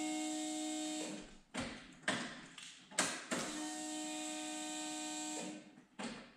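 Electric fuel pump of a fuel-injection conversion priming on key-on, running with a steady whine for about two seconds and then stopping, twice, with sharp clicks between the runs. The fuel lines and filter are being filled before the first start.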